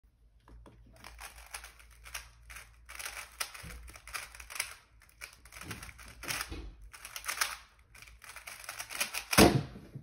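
Rapid plastic clicking and clacking of a Dayan Tengyun M 3x3 speedcube being turned at speed during a solve. A loud knock near the end as the cube is put down and the hands slap the timer to stop it.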